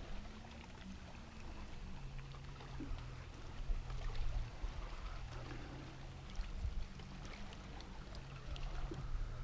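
Small waves lapping against a small boat's hull, with low wind rumble on the microphone and a faint steady low hum.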